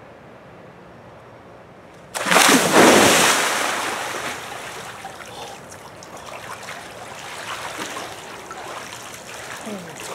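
A person splashes into the water of an above-ground pool about two seconds in, a loud sudden splash that fades over a couple of seconds, then the water keeps sloshing and lapping as it settles.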